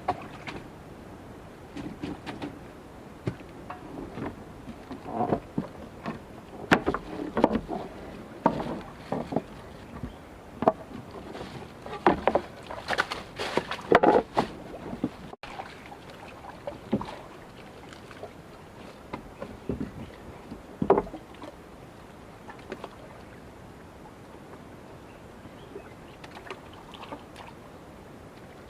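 Irregular splashing and knocking, busiest in the first half, then sparser with a few isolated knocks.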